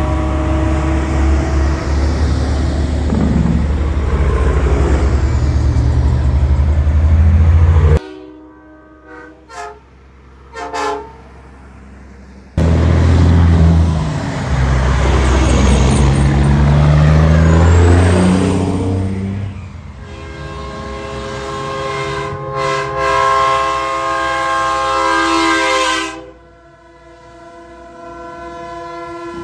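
Semi trucks' diesel engines running loudly as the rigs drive past, with their air horns blowing chords of several steady tones: briefly near the start, then a long blast of several seconds in the second half that cuts off abruptly, and another starting near the end.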